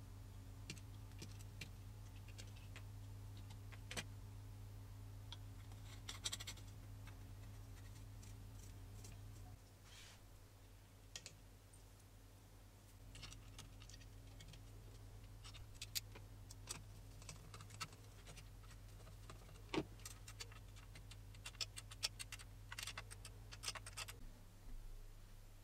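Small hardware being handled and fitted: light clicks and taps of screws, metal fittings and plastic parts on a water-cooling radiator and its fan, most frequent near the end, over a steady low hum.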